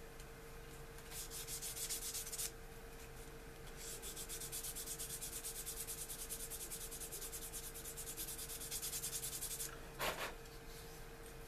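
Sandpaper rubbing a small plastic model-kit part to smooth off the sprue marks, in rapid, even back-and-forth strokes: a short run, then a longer one. A light knock near the end.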